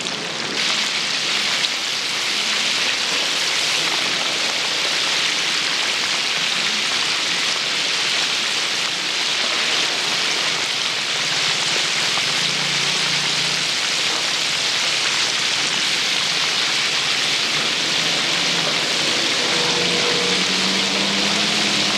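Food deep-frying in a large vat of hot oil, a steady, even sizzling hiss.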